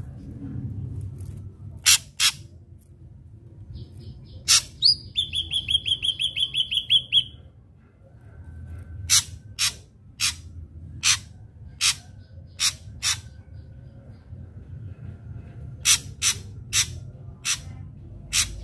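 Ashy drongo singing. Two sharp, clipped notes about two seconds in are followed by a quick run of about a dozen repeated notes lasting two to three seconds, then single sharp notes spaced roughly half a second to a second apart.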